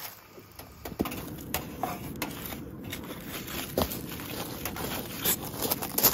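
Irregular crackles, clicks and scrapes from a fire burning in a small metal fire box and from metal tongs working in it to lift out a foil-wrapped packet.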